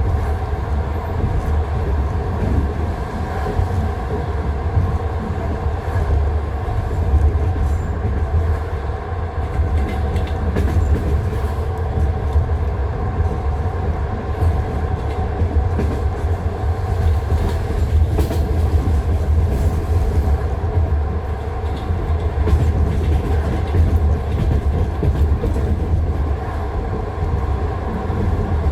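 Passenger train wheels running over jointed track, heard from inside the carriage: a steady low rumble with sharp clacks as the wheels cross the rail joints.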